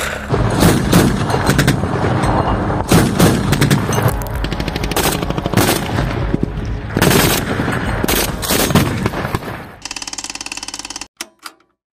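Bursts of rapid automatic weapon fire from a mounted machine gun, shot after shot in long strings with short breaks between them. About ten seconds in, the firing gives way to a short, evenly rhythmic sound effect that cuts off abruptly.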